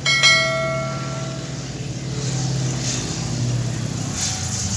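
A bright bell chime from a subscribe-button sound effect rings once and fades over about a second and a half, over the steady low drone of a Nanchang PT-6 trainer's radial piston engine as it taxis.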